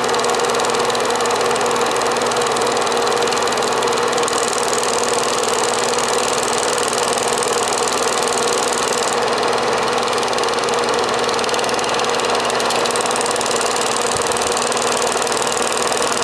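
Film projector running, a steady, unbroken mechanical whirr of its motor and film-advance mechanism.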